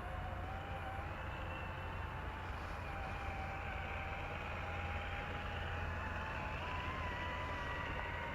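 Electric motor and gearbox whine of a radio-controlled scale crawler driving slowly, the whine wavering up and down in pitch with the throttle.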